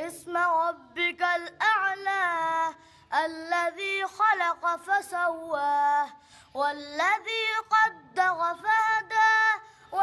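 A boy's high voice reciting the Qur'an in Arabic in a melodic chanted style, with long held, ornamented notes and short pauses for breath between phrases.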